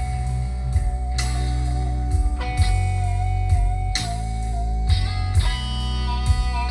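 Fender Stratocaster electric guitar playing a slow blues lead in B, holding long notes with a wide, wavering vibrato. Underneath are sustained bass notes and a steady beat from a backing track.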